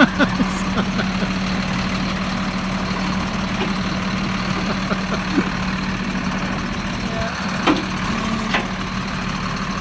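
Engine idling steadily, a low even hum, with a couple of faint clicks near the end.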